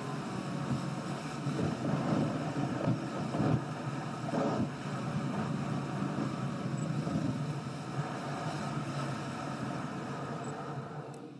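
Sped-up running noise of a car being driven, heard inside the cabin: a steady engine and road rumble with rapid flutter. It drops away abruptly near the end.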